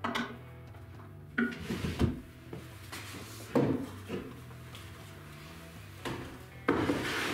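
Wooden drawer sliding in its cabinet and bumping shut, then a few wooden knocks and, near the end, a longer wooden scrape as a wooden fence is set down and slid onto a shelf.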